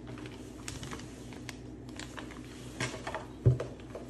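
Plastic bags of kit parts rustling and clicking lightly as hands sort through them in a cardboard box, with one soft thump about three and a half seconds in.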